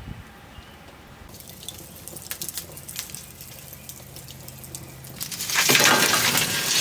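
Lump charcoal crackling with sparse faint pops as it catches in a chimney starter. Near the end the burning coals are tipped out of the metal chimney into the firebox basket with a sudden loud rattle and rush.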